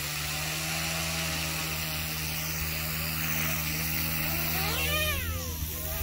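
OMPHobby M2 Explore electric RC helicopter spooling up on the ground: a steady low rotor hum under a motor whine that slowly rises in pitch. About five seconds in, the whine sweeps sharply up and back down.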